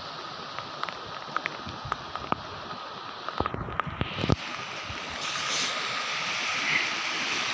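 Steady rushing noise of a flooded river, with a faint steady whine under it. Scattered clicks and knocks in the first four seconds; the rushing grows louder about five seconds in.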